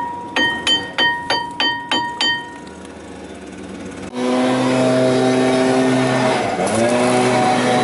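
A hammer striking the old front brake disc of a Citroen C3 about eight times, roughly three blows a second, to knock the seized disc off the hub. Each blow leaves the metal ringing. About four seconds in, a steady engine-like drone starts abruptly and dips briefly in pitch near the end.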